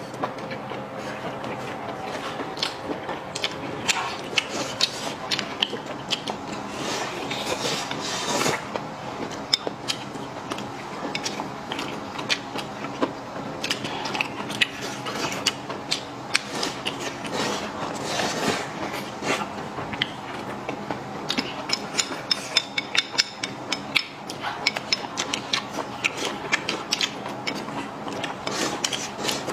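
Mealtime clatter: chopsticks and utensils clicking and knocking irregularly against bowls and dishes, over a faint steady hum.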